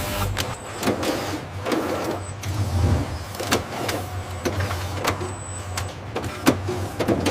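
Factory machinery running: a steady low hum under irregular sharp metallic clicks and clanks, with a short high whine now and then.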